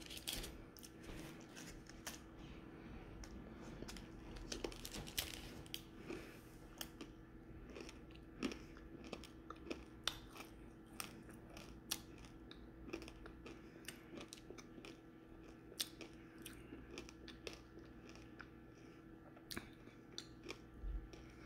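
Faint chewing of candy, with small irregular crunches and wet mouth clicks.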